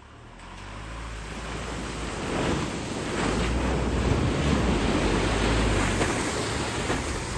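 Toyota HiLux's 2.8-litre turbo-diesel pulling through a deep mud hole, with water and mud splashing and churning around the wheels and underbody over a low engine rumble. The splashing swells over the first few seconds and eases slightly near the end.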